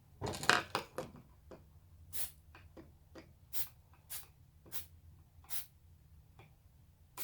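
Aerosol can of high-strength spray adhesive spraying in short hisses: a longer burst near the start, then about five quick squirts.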